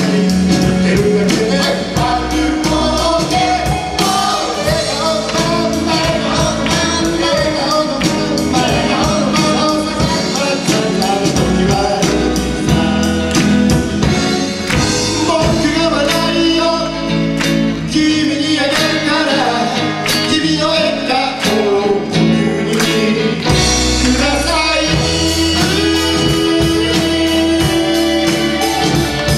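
Live band playing an upbeat song: a man singing lead over acoustic and electric guitars and a drum kit. The bass end drops away for about five seconds past the middle, then comes back in.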